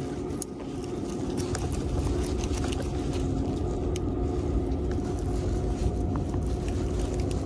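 A steady low motor drone with a faint even hum, with small clicks from a garfish and lure being handled.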